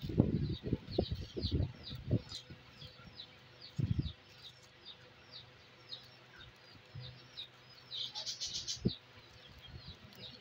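Small birds chirping in the background, a steady run of short chirps about three a second that thickens briefly near the end. Over it come close rustles and thumps of hands handling the paper- and foil-backed sheets of silver leaf, loudest at the start and again about four seconds in.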